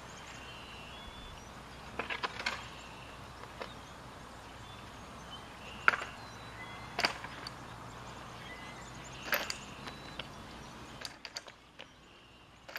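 Scattered sharp taps and knocks, one to two seconds apart and uneven, the loudest about six seconds in, over a quiet steady outdoor background.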